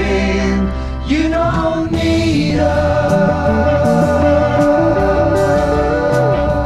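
Background music: a song with sung vocals over sustained chords.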